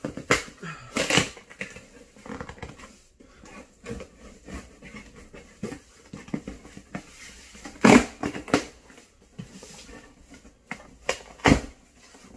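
Cardboard shipping package being opened by hand: irregular scraping, rustling and knocking of cardboard and packing tape, with a few sharp, louder knocks about eight seconds in and again near the end.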